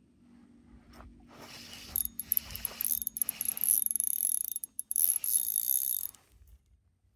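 Fishing reel being cranked, a rapid mechanical clicking and whirring that starts about a second in and stops near the end.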